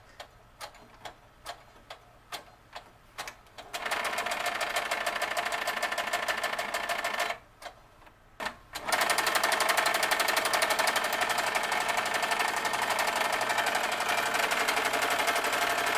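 Brother SC625 sewing machine stitching, first at its slowest speed with separate needle strokes about twice a second. It then runs in a fast continuous chatter from about four seconds in, stops briefly, and runs again faster and louder from about nine seconds in.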